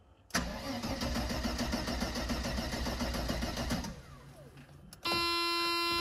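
The starter cranks the Mercedes M103 3.0-litre straight-six for about three and a half seconds with an even beat, and the engine does not catch: a crank, no start, which the owner puts down to the distributor cap or ignition coil. Near the end a steady buzzing tone sounds for about a second and a half and then cuts off.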